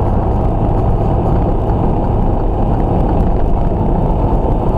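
Semi truck's engine and road noise at highway speed, heard inside the cab through the dashcam: a loud, steady low rumble.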